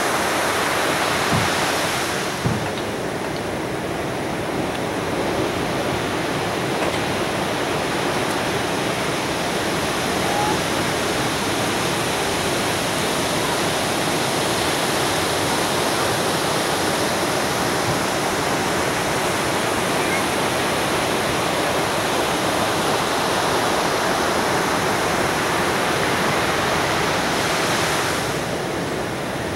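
Breaking ocean surf on a beach: a steady wash of rows of large breakers, over five feet high, raised by a distant hurricane's swell. A brief low thump comes about two and a half seconds in.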